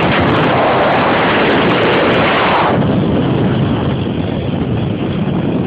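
Loud rushing wind on a microphone moving at road speed, over the running of motorcycles riding alongside. The rush dims about three seconds in.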